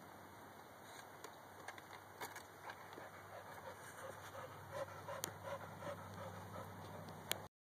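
A dog panting with short, repeated whimpers during a breeding tie. The sound drops out completely for a moment near the end.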